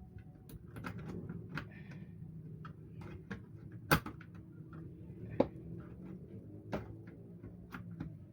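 Hard clicks and knocks of a drive being fitted back into a desktop PC's drive bay by hand, with one sharp knock about four seconds in and lighter ones after it.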